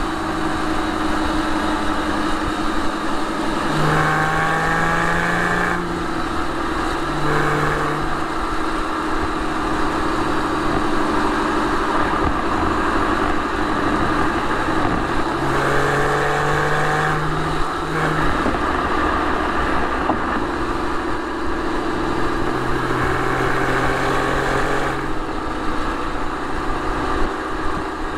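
2006 Porsche 911 Carrera 4's 3.6-litre flat-six engine and exhaust running at highway cruise, heard close to the exhaust, with several short surges in the engine note where the throttle is opened.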